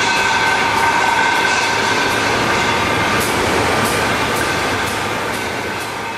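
Sand and aggregate pouring from a hopper chute into a metal bin, a steady rushing noise over plant machinery with a steady whine. The noise eases off near the end as the flow tapers.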